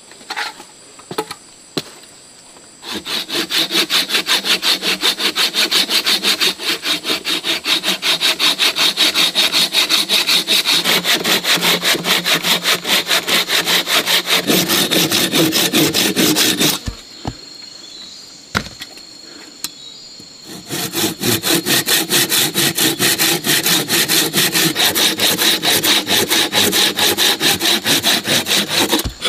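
Hand saw cutting through a log in quick, even back-and-forth strokes. A few knocks come first, about three seconds in the sawing starts, and it stops for about four seconds in the middle before resuming.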